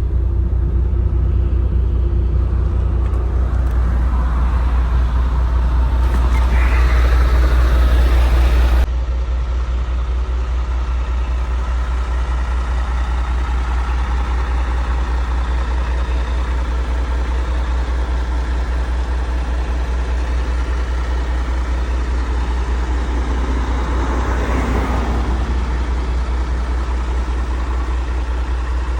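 Steady low drone of a truck's engine and road noise heard from inside the cab, with an abrupt drop in loudness about nine seconds in.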